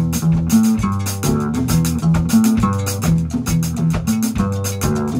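Live jazz band playing: upright double bass walking through a line of changing low notes under electric guitar, with drum kit cymbals and hand drums keeping time.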